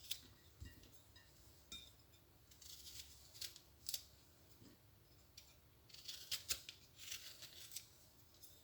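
Knife trimming the ends off whole lemons: faint, crisp cutting clicks through the peel, coming in two short clusters a few seconds apart.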